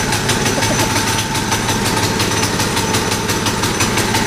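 Minibike's small single-cylinder engine running steadily at idle just after being pull-started, with a rapid, even firing beat.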